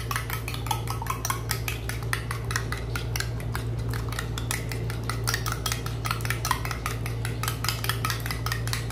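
Two eggs being beaten in a ceramic bowl: the beating utensil clicks against the bowl in rapid, even strokes, several a second, without a break.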